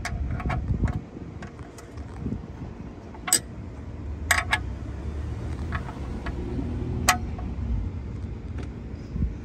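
A wrench clicking and clinking on the oil pan drain plug bolt as it is tightened back in: a few quick clicks at the start, then single sharp metallic clinks a second or more apart, over a steady low rumble.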